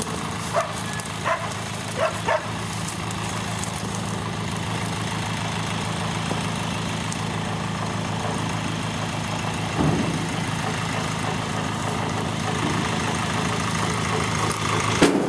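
Small cab-over dump truck's engine idling steadily. A dog barks a few times in the first couple of seconds.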